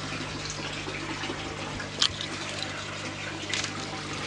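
Water trickling and splashing steadily into an aquaponics fish tank, over a steady low hum, with one sharp click about two seconds in.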